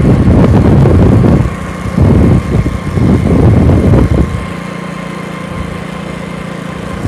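Hero Passion Pro motorcycle's single-cylinder four-stroke engine running at cruising speed, heard from the handlebar with wind buffeting the microphone in loud gusts. About four seconds in, the buffeting drops away and the engine's steady hum comes through clearly.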